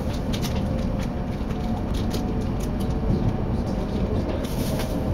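Tohoku Shinkansen train heard from inside the passenger cabin as it pulls out of the station: a steady low rumble with scattered light clicks. A high hiss joins in near the end.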